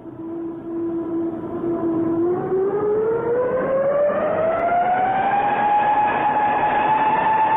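Siren-like electronic whine from an old TV show's opening soundtrack, holding one pitch, then gliding smoothly upward about two seconds in and settling on a higher steady pitch.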